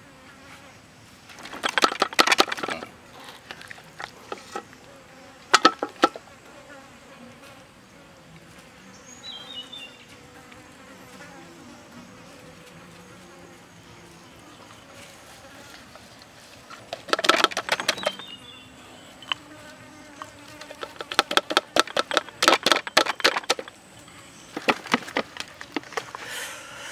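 Hands rubbing seasoning into a raw whole duck on a metal tray, heard as several bursts of rapid ticking and rustling, with insects buzzing around.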